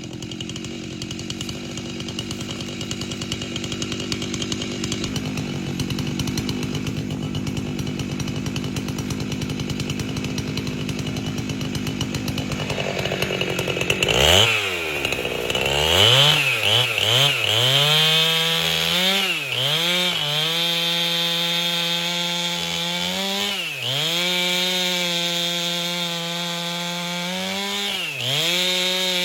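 Two-stroke chainsaw with a 30-inch bar ripping an albasia log lengthwise. It runs low and rough for about the first half, then revs up to full throttle and holds a steady high pitch. The pitch sags briefly three or four times as the chain loads in the cut.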